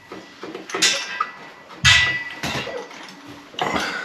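Metal fittings and tools being handled: several sharp metal clinks and knocks, the loudest about two seconds in, some with a short ring.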